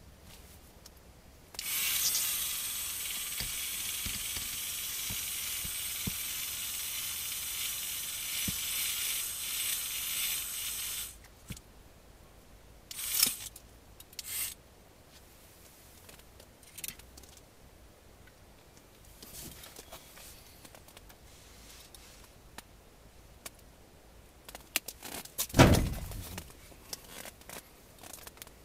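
Ice-fishing reel spool whirring steadily for about nine seconds as the rig drops down the hole, then stopping suddenly. Scattered clicks and handling knocks follow, and there is a loud thump near the end.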